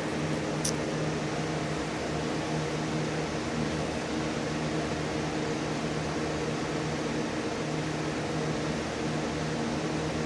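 Steady background machine hum with a low droning tone, and one faint click under a second in.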